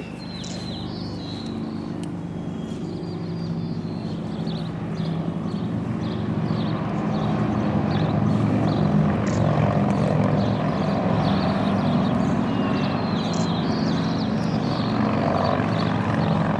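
Steady engine drone that grows louder over the first eight seconds and then holds, with birds chirping.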